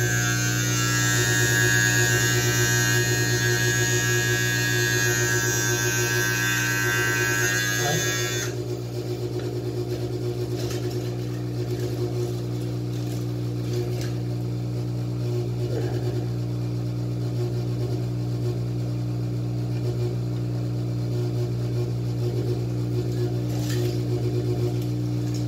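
Electric beard trimmer running with a steady buzz. For the first eight seconds or so a bright rasping hiss rides over the buzz as the blades work through beard hair, then it stops and the trimmer runs on alone.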